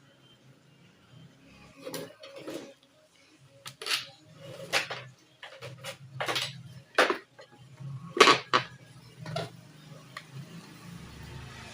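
Irregular sharp clicks and clinks, about nine in all, of hand tools and parts being handled while working on a scooter's wiring harness, over a low steady hum.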